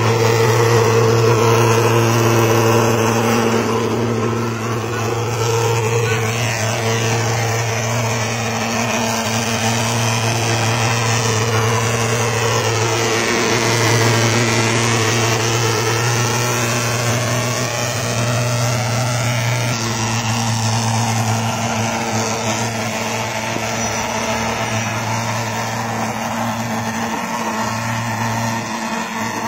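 Vectorfog pulse-jet thermal fogger running continuously, a loud steady low drone while it pumps out insecticide fog for mosquito control.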